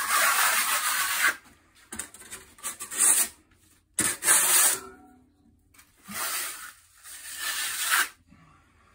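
A plastering trowel scraping as it presses sticky lime putty finish plaster thinly onto a hemp lime basecoat. There are several strokes of hissy rubbing, the longest near the end, with short pauses between them.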